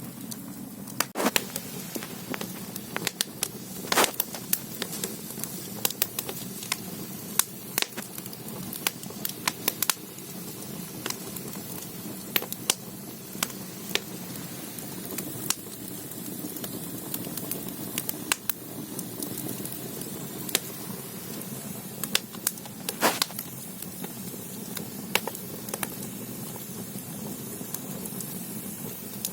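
Firewood burning in the stoking hole of a Korean ondol (gudeul) underfloor-heating firebox. Under a steady low rush of flame come irregular sharp crackles and pops, a few of them loud.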